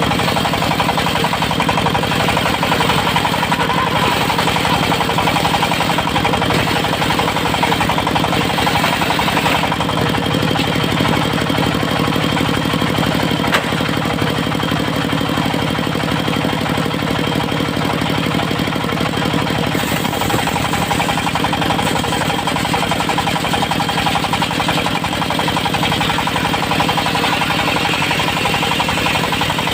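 Engine of a mobile circular-saw sawmill running steadily with a rapid, even chugging. The tone shifts slightly about ten and twenty seconds in.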